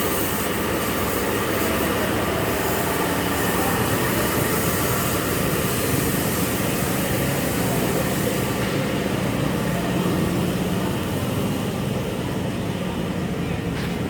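Wash-bay machinery running steadily with a hum, under a loud hissing jet spray that eases off about eight or nine seconds in.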